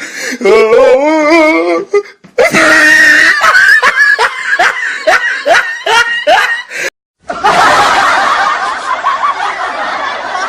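Laughter sound effects played back to back, each cut off abruptly: first a wavering, pitched laugh, then a rhythmic laugh of about two rising 'ha's a second, and after a brief gap a dense, noisy stretch of laughter.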